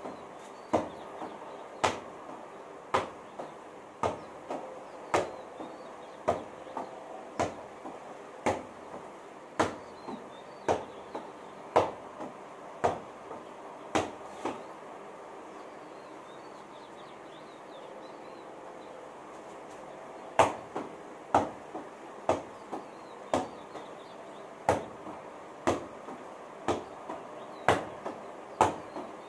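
Volleyball being struck repeatedly by hand in a steady rhythm, about one strong hit a second, each followed by a lighter knock about half a second later. The hitting stops for about six seconds in the middle, then resumes.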